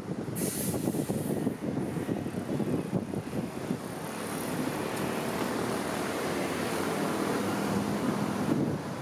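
Busy city street traffic: a steady rumble of engines and tyres from passing and idling vehicles, with a brief high hiss about half a second in.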